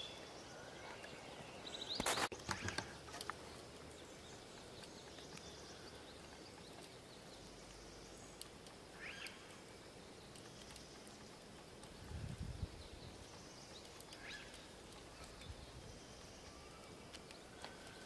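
Faint outdoor background hiss, with a quick cluster of sharp knocks about two seconds in and a couple of brief, faint high-pitched sounds later on.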